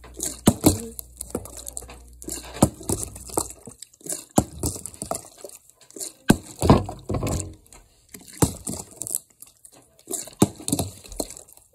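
Cracked plastic water bottle being handled and flipped onto a carpeted floor: crinkling of the thin plastic and about a dozen sharp knocks and taps spread unevenly, the loudest just past the middle.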